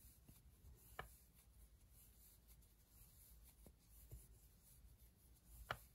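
Near silence: faint rubbing of yarn on a Tunisian crochet hook as loops are worked off, with a soft click about a second in and another near the end.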